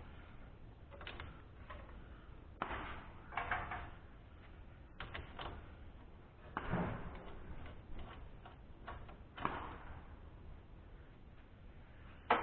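Hand tools and loose metal engine parts clinking and clanking in irregular knocks and clicks. The loudest knocks come about two-thirds of the way in and near the three-quarter mark.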